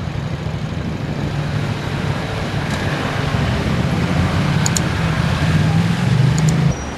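City street traffic with several motorcycles and cars idling at a crossing and pulling away, their engine rumble building steadily and cutting off abruptly near the end. Two short mouse-click sound effects come about two-thirds of the way in and near the end.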